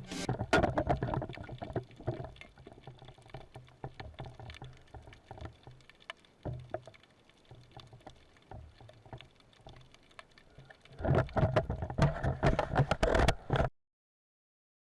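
Water splashing and bubbling around a spearfisher in shallow sea, with many small clicks and patters. It is loud at the start, quieter through the middle, and loud again near the end before cutting off abruptly to silence.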